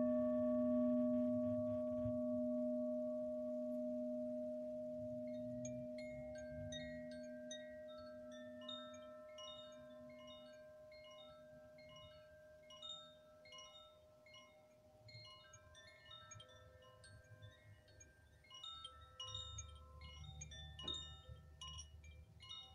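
A struck singing bowl rings with a clean two-note hum that fades slowly. From about six seconds in, a shower of small high chimes tinkles over it in loose, scattered notes.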